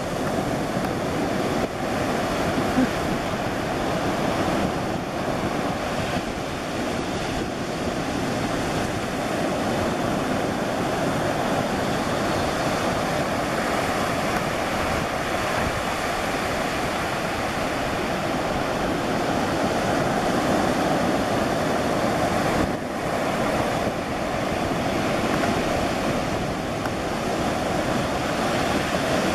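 Ocean surf breaking and washing ashore in a steady rush, with wind buffeting the microphone.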